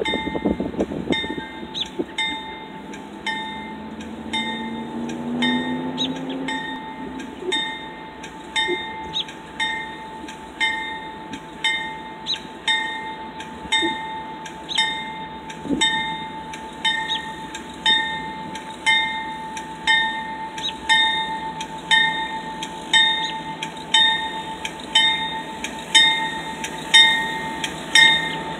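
Diesel locomotive bell ringing steadily about once a second, growing louder as the CSX CW40-8 locomotive approaches. Under it runs the train's low rumble, with a low tone rising in pitch a few seconds in.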